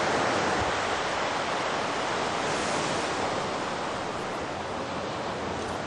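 Ocean surf washing steadily onto the beach, a continuous rush of noise that eases slightly toward the end.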